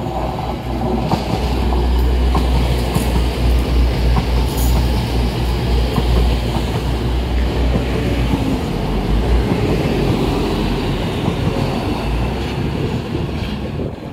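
Two coupled TransPennine Express Class 185 diesel multiple units, with Cummins QSK19 underfloor diesel engines, passing close by: a deep diesel rumble together with the noise of wheels on the rails. It grows loud within the first couple of seconds as the train draws alongside and eases slightly as it pulls away near the end.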